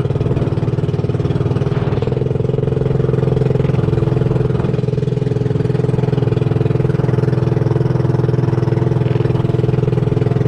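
Motorized outrigger boat's engine running steadily under way, a constant drone that holds one pitch.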